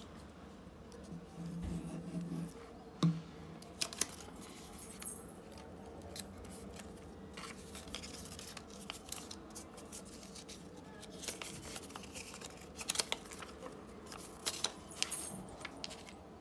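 Paper handling: coloured paper pieces being pressed, folded and stuck together with a glue stick, giving soft rustles and scattered light clicks and taps.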